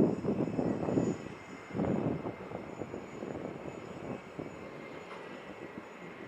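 Jet airliner engines, a rough rumble with a faint steady high whine above it. It is loudest in the first two seconds, then settles lower.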